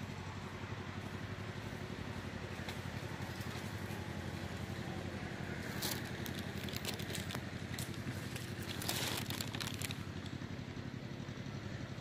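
Steady low hum of distant city traffic, with short bursts of crackling, scratchy clicks about six seconds in and again around nine seconds.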